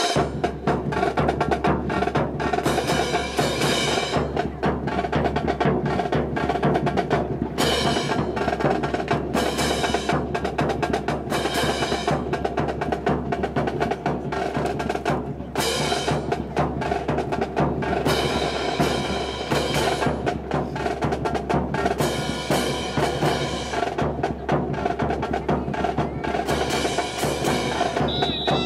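Military band playing a march, driven by rapid snare drum strokes and rolls over bass drum beats, with fuller stretches every few seconds.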